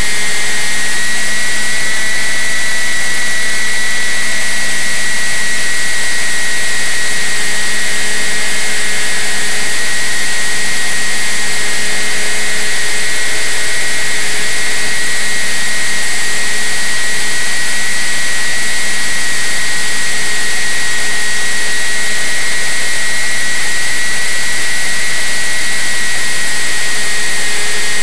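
Motor and propeller of a radio-controlled flying-wing model plane in flight, heard from on board: a loud, steady high-pitched whine over a heavy hiss.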